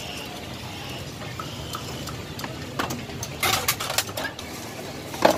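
Steady background noise of a busy street-food stall, with a few sharp clicks and rustles of handling, the loudest a cluster about three and a half seconds in and one just before the end.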